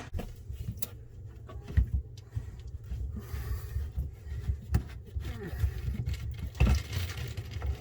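Scattered knocks and clunks from hands working a sink drain pipe loose, over a steady low rumble.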